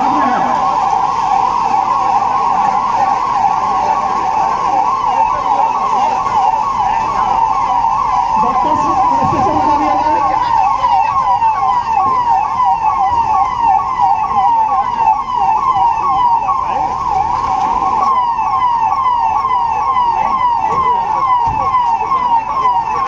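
Warning siren wailing in a fast, steady warble, its pitch swinging up and down about three times a second.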